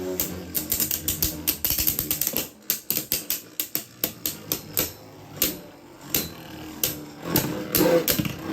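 Spinning Beyblade Burst tops clashing in a plastic stadium: a fast run of clattering hits for the first couple of seconds, then scattered knocks as they keep spinning.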